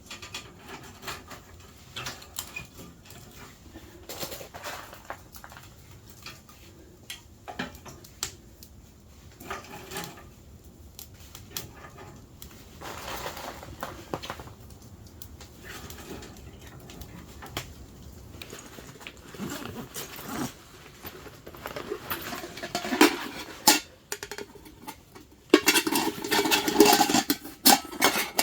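Metal cookware being handled: scattered clinks and rustling, with a louder run of clattering near the end.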